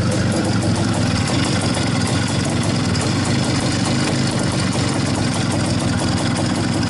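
Single-cylinder two-stroke engine of an IZh-49 motorcycle running steadily above low idle, with even firing pulses. Its piston knock has just been treated with solid lubricant.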